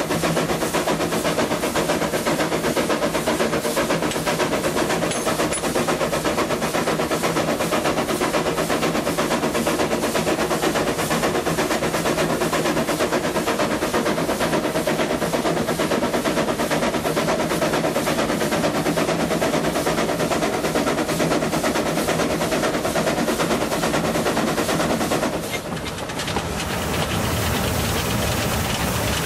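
ÖBB class 298 narrow-gauge steam locomotive working a train, heard from a riding carriage: fast, even exhaust chuffing mixed with wheels clattering on the rails. Near the end the sound dips briefly and a deeper rumble takes over.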